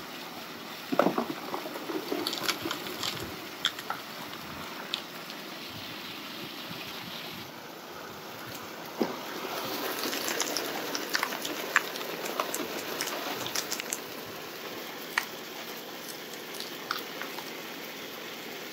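Water from a highbanker's spray bar rushing steadily over gravel on the metal classifier screen, with stones clicking and knocking against the screen and hopper; there is one loud knock about a second in, and the clicking is busiest in the middle stretch.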